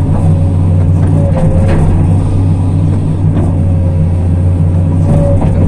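Hydraulic excavator's diesel engine running steadily under load, heard from inside the cab, as the bucket scrapes and shapes a mud levee. A faint whine rises and fades twice over the engine.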